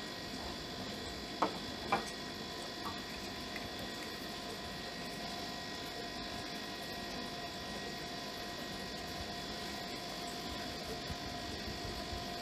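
Steady background hum made of several fixed whining tones over a low rumble. There are two short clicks about one and a half and two seconds in.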